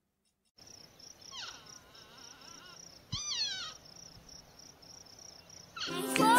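Porcupine calls: a faint wavering squeaky whine about a second and a half in, then a louder falling squeal about three seconds in, over a steady high pulsing background. A plucked-string tune starts near the end.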